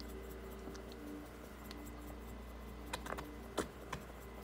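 A faint steady hum, then a few light clicks and taps about three seconds in from a wooden spoon starting to stir thick tomato sauce in a pot.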